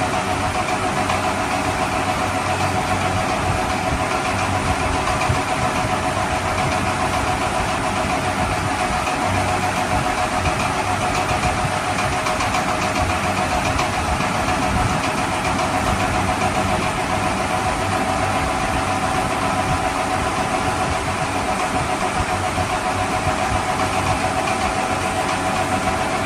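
Toy vehicle's engine sound running steadily and unbroken, with a steady high whine over the engine noise.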